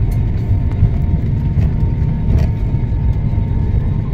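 Airliner cabin noise while the plane rolls on the runway just after landing: a loud, steady low rumble of engines and wheels.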